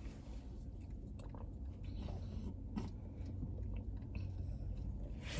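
Someone chewing food close to the microphone: faint, irregular soft clicks and crunches over a steady low hum.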